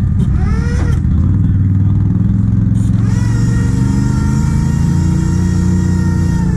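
Fishing boat's engine-driven boom winch running under load, its pitch rising as the boom hoists and swings a bundle of firewood. There is a quick rise and fall in pitch about half a second in, and the pitch climbs again from about three seconds in.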